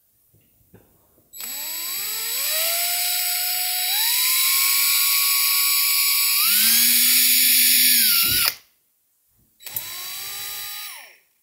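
DeWalt cordless drill running with a heated bit, drilling a small screw hole through a fabric-faced beltline weatherstrip. Its motor whine steps up in pitch as the trigger is squeezed harder, runs for about seven seconds and stops sharply. It is followed by a second, shorter run whose pitch falls away before it stops near the end.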